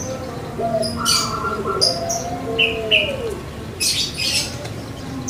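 Barbary dove (puter pelung) cooing: a low coo that rises and then slides down in pitch, heard twice. Short, high chirps from smaller birds sound over it several times.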